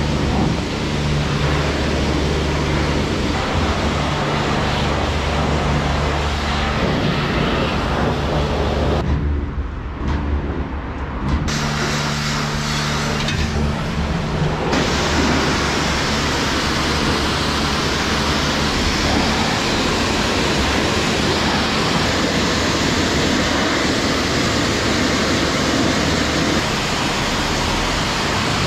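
Self-service car wash equipment running: a steady low machine hum with water noise. About halfway through, it gives way to the even hiss of a pressure-washer lance spraying water.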